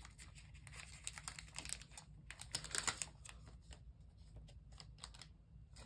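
Faint plastic crinkles and small clicks of a trading card being slid into a soft plastic penny sleeve, busiest about two and a half to three seconds in.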